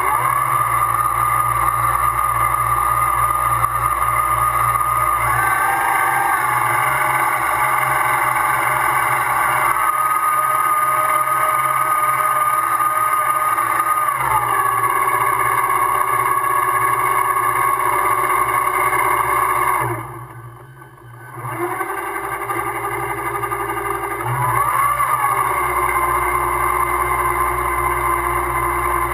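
Motor of a radio-controlled model tugboat running with a steady whine over a low hum. The whine shifts in pitch several times, and about twenty seconds in the sound falls away for a second or so before picking up again.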